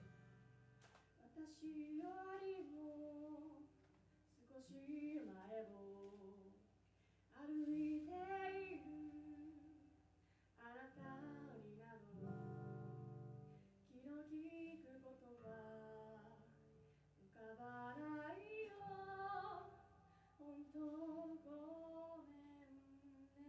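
A young woman singing a slow ballad in phrases of a few seconds each, accompanying herself on acoustic guitar, with short pauses between the sung lines.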